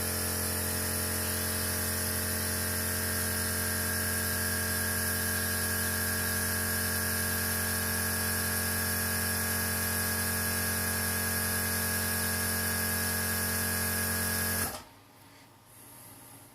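Hot air rework station's blower running steadily, a whirring hum with a high whine, while heating a phone's flex cable connector to desolder it. It cuts off suddenly near the end.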